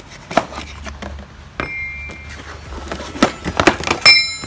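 Cardboard box being handled and rummaged, with knocks of heavy painted-steel recovery point brackets shifting inside. Near the end, a sharp metallic clink rings briefly.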